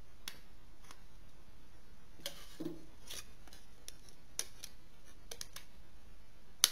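Small plastic clicks and a brief rustle as hands fit the back cover onto a Telefunken TM230 COSI flip phone, with one sharp snap near the end as the cover clicks shut.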